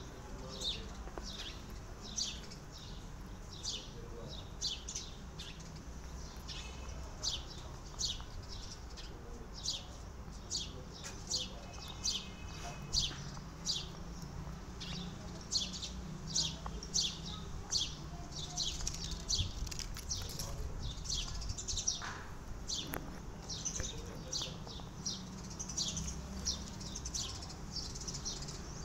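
Small birds chirping steadily, short high downward chirps at about two a second, over a faint low hum.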